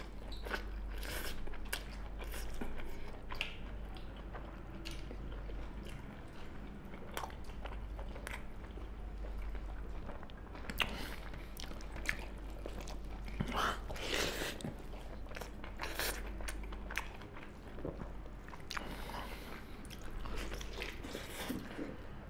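Two people eating pork curry and rice with their hands: chewing and biting, with many scattered smacks and clicks, over a steady low hum.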